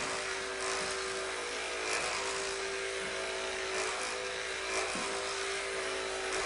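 Electric hair clippers fitted with a number one guard, buzzing steadily as they cut hair down close to the scalp.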